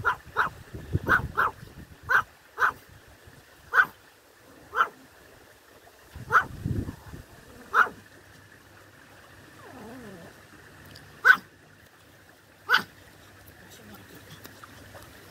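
Pomeranian yapping: about a dozen short, sharp barks at uneven intervals, coming thick in the first eight seconds and then only twice more.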